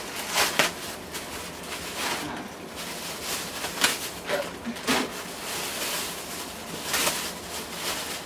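Plastic packaging rustling and crinkling in irregular bursts as a plastic mailer bag is pulled open by hand and a clear plastic-wrapped item is drawn out.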